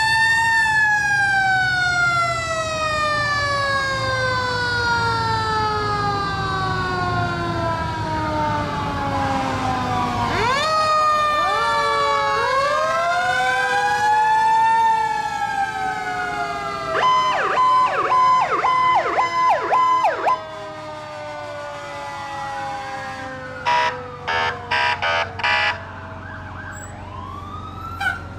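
Fire engine sirens: a mechanical siren winds down in one long falling wail, then more sirens wind up and down over each other. Past the middle comes a fast yelping siren over a steady tone, and near the end about four short horn blasts.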